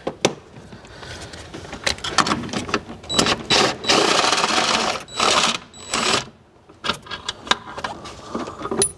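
Cordless power tool whirring, spinning a bolt out of the ABS pump mounting: one run of about a second and a half near the middle, then two short bursts. Sharp metallic clicks and clinks of tools and bolts come before and after it.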